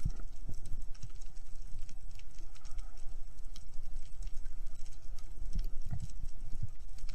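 Underwater sound picked up through a camera's waterproof housing on a speargun: low dull thumps of water moving against the housing, with scattered sharp clicks and crackles.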